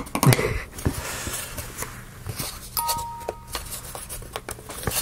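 Light clicks and knocks of laser-cut plywood kit parts being handled and pressed together. About three seconds in, a short steady two-note beep sounds for under a second.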